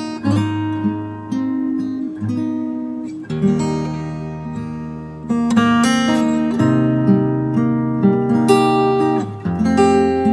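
Acoustic guitar (violão) playing a slow, relaxing instrumental piece: plucked and strummed chords that ring on between attacks, with the bass note changing a few times.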